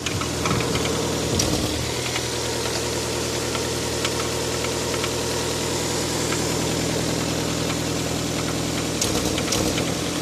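Toyota 7A-FE four-cylinder engine idling steadily with a repeated knock from inside it, a foreign knock whose cause the owner does not know.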